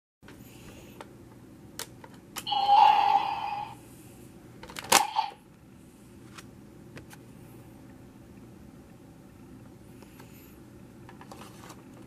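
Plastic clicks from a Drag Visor Zwei toy being handled, with a louder burst of noise lasting about a second near three seconds in and a sharp click about five seconds in, over a low hum of room tone.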